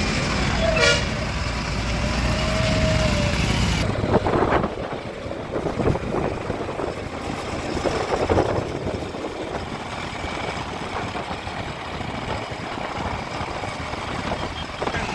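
Diesel engines of a backhoe loader and tractors running, with a short horn-like toot about a second in and a longer steady tone around two to three seconds. The low engine rumble drops in level about four seconds in.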